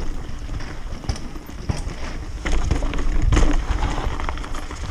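Mountain bike rolling fast down a leaf-strewn dirt trail: a steady low rumble of tyre and ground noise with frequent knocks and rattles from the bike over bumps, loudest a little over three seconds in.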